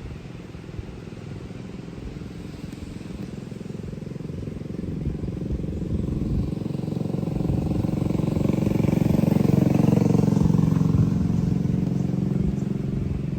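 A motorcycle engine running, growing steadily louder to a peak about ten seconds in, then easing off a little.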